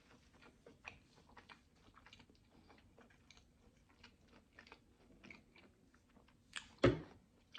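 Close-miked chewing of a mouthful of food: many small, irregular wet clicks of the mouth, with one louder smack near the end.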